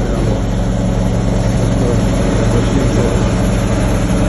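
A nearby engine idling with a steady low rumble, over the continuous rush of highway traffic.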